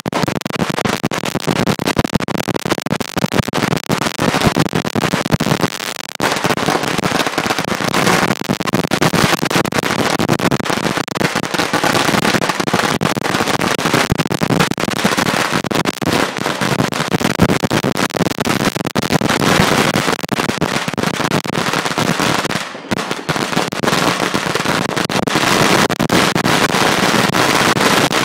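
Firecrackers going off at ground level in a rapid, continuous barrage of loud cracks and bangs, with a short lull about 23 seconds in.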